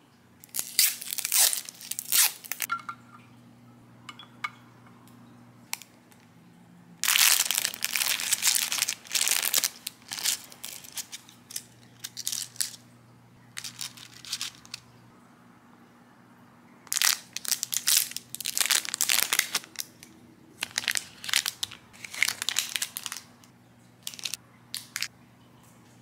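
Food packaging and wrappers being handled: crinkling and rustling in irregular bursts of a few seconds each, with short crackles in between.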